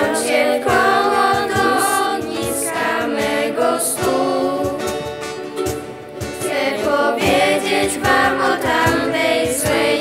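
A children's vocal group singing together in several voices, accompanied by strummed acoustic guitar and ukulele.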